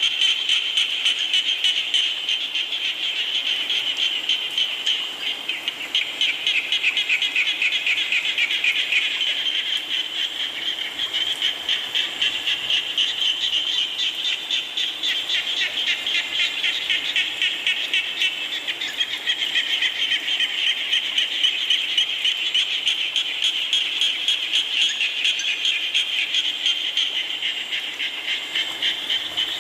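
A dense chorus of frogs calling, many rapid pulsing calls overlapping without a break, over a steady hiss of falling rain.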